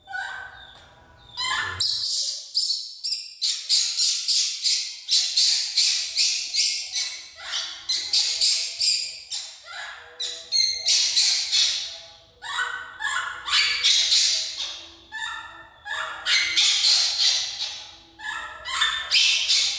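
Baby macaque crying in a long run of short, shrill squeals, several a second. The crying starts about two seconds in and breaks off briefly a few times.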